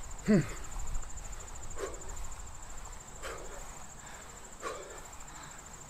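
A man exhales sharply in a steady rhythm, about once every second and a half, as he reaches up on each squat-to-overhead-press rep; the first breath, near the start, is a short falling grunt. Insects trill steadily behind him in a high, fast-pulsing tone.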